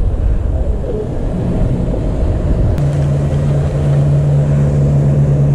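Wind buffeting the camera microphone, a loud, even low rumble. A steady low hum sets in about three seconds in and holds.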